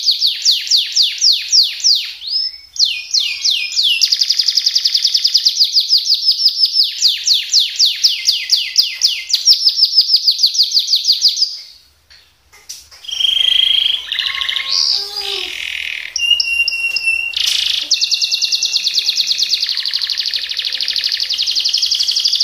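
Domestic canary singing long, rapid rolling trills of quickly repeated notes. About halfway through there is a brief pause, then a passage of mixed whistles and buzzy notes before the rolling trills start again.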